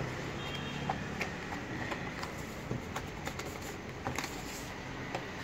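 Faint, scattered taps and rustles of a cardboard retail box being handled and turned over, over a steady low background hum.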